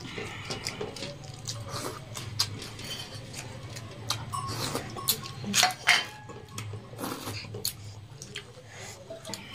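Eating sounds: fingers working rice and curry on steel plates, with small taps and clinks of the steel plates and bowls and mouth sounds of chewing. Two louder knocks come close together about six seconds in.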